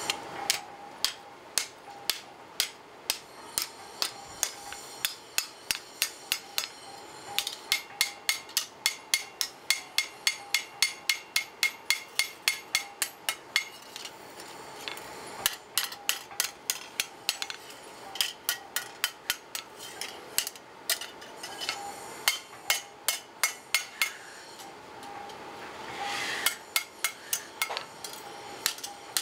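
Hand hammer striking red-hot iron on an anvil, forging a homi blade. The blows ring out about three a second in quick runs, broken by short pauses.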